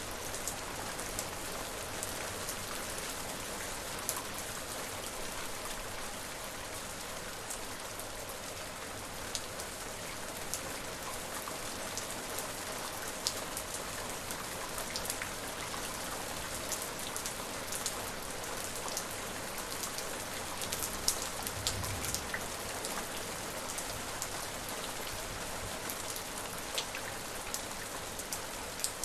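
Steady rain falling, an even hiss with many individual drops ticking on a surface, and a brief low rumble about three quarters of the way through.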